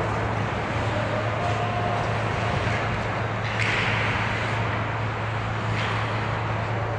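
Ice hockey rink during play: a steady low hum under a continuous hiss of skates on the ice, with a few faint sharp clicks and a brief louder scrape about three and a half seconds in.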